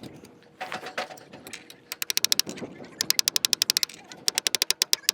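Rapid sharp clicking in three bursts, about ten clicks a second, with a few single knocks between, as a tool tightens the lock nut on a motorcycle suspension's spring preload adjuster.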